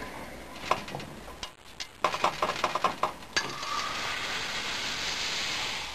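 Pliers crack open the sealed end of a CRT picture tube's glass neck in a run of sharp clicks. About three and a half seconds in, air starts hissing steadily into the evacuated tube for over two seconds, with a thin whistle at first, as the vacuum is let out.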